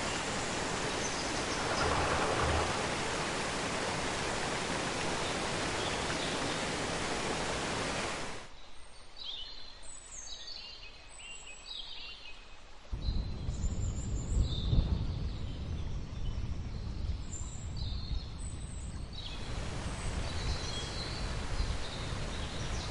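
Added nature ambience: the steady rush of a waterfall, which drops away about eight seconds in to leave birds chirping. A low rumble comes in under the birds about halfway through, and the water rush returns near the end.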